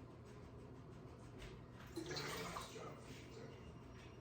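Faint splashing and trickling water, a little louder for a moment about two seconds in.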